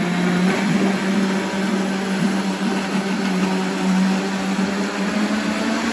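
Vitamix blender motor running steadily at one pitch, churning a thick oat and banana muffin batter while the tamper is pushed down into it through the lid.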